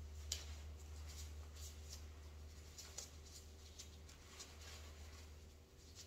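Faint rustling of a disposable gown's sleeves and gloves as the glove cuffs are worked under the sleeves, with a few short soft scuffs scattered through. Under it runs a low steady hum that stops near the end.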